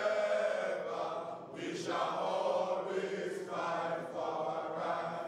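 A crowd of students chanting together in unison, in long sung phrases with short breaks between them.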